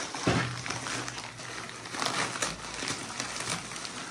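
Clear cellophane gift wrap crinkling and rustling as it is handled and pulled open by hand, in irregular bursts.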